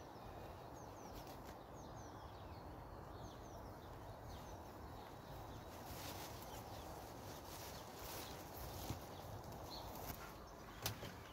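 Faint footsteps on a grass path with plastic bags rustling, growing closer and louder in the second half, over a steady outdoor hush with a few small bird chirps in the first few seconds.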